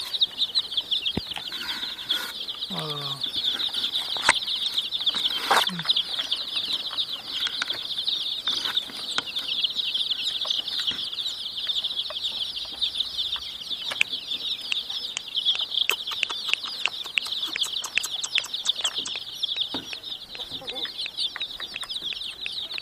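A crowd of baby chicks peeping nonstop, many high chirps overlapping into a constant chatter.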